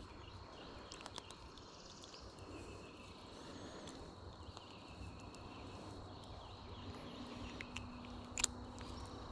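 Faint outdoor ambience: a steady high insect drone with faint bird chirps, scattered light clicks, and one sharper click near the end.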